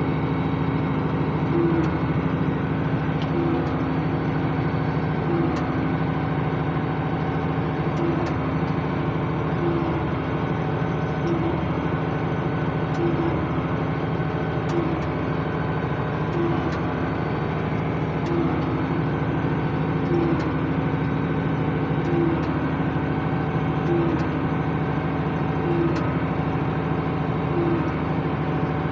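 International 886 tractor's diesel engine running steadily, heard from inside the cab while pulling a hay baler, with a regular short beat about every second and a half.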